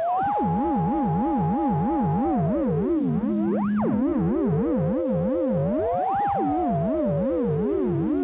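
Synthesizer tones. A sustained note glides up and holds, slides down, then rises and falls again, over a lower warbling tone that wobbles in pitch about two or three times a second.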